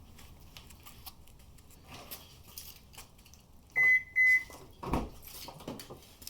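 Two short high electronic beeps, then a dull clunk about half a second later as the Subaru Forester's automatic transmission is shifted between park and reverse. The dealer traced the clunk to a bad CV axle.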